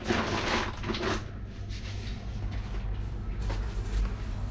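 A partition capsule door being handled and opened: knocking and rattling for about a second, then a steady low hum with a few faint clicks.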